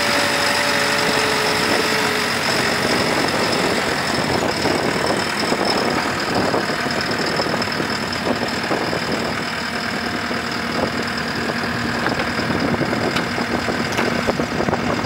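JCB 260 skid steer loader's diesel engine running steadily as the machine drives and turns, with a few light clicks and knocks in the second half.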